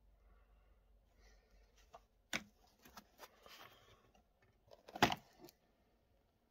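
Faint handling noise of a leather sneaker being picked up and turned over by hand: light rustles and ticks, with a sharp knock about two seconds in and a louder one about five seconds in.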